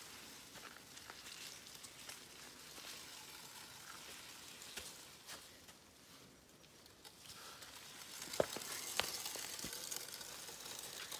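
Loaded bicycle's tyres and feet squelching through wet, sloppy mud, a faint crackling hiss with scattered clicks, getting louder near the end with a few sharper clicks.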